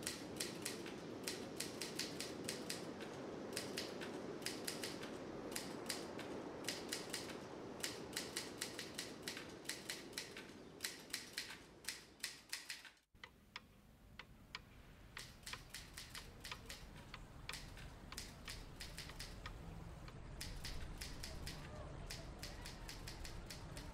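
Rapid sharp ticks coming in uneven runs over a soft hiss. The sound drops out suddenly about halfway, then comes back with fainter ticks.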